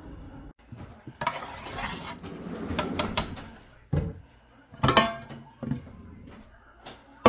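A wooden spatula scraping and knocking against a frying pan as it spreads oil. There are a few sharp knocks and clinks, the loudest about five seconds in.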